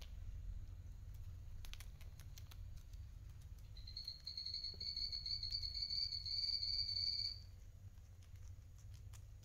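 Guinea pig chewing lettuce leaves: soft crunching with small clicks. From about four seconds in, a steady high whistle-like tone runs for some three seconds, then stops.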